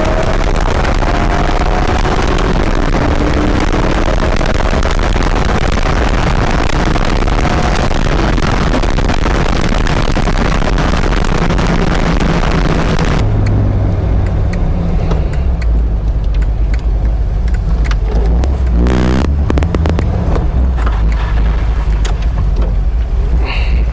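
1979 Ford Fairmont driving with loud road and wind rush, its engine pitch climbing slowly as it accelerates. About thirteen seconds in the rushing noise cuts off abruptly, leaving a low, steady engine rumble with a few clicks near the end.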